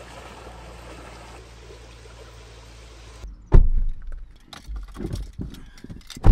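River water flowing past rocks, a steady rush. About three seconds in it gives way to car sounds: a loud thump, then knocks and rustling as someone climbs into the driver's seat, and another loud thump at the very end as the car door shuts.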